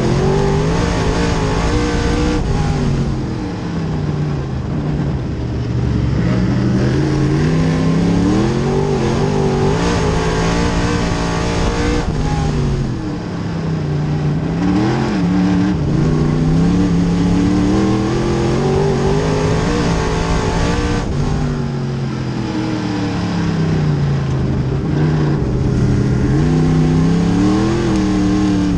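Small-block V8 engine of a dirt modified race car heard from its cockpit, running hard as the car laps. The pitch climbs and falls over and over as the driver gets on the throttle and lifts.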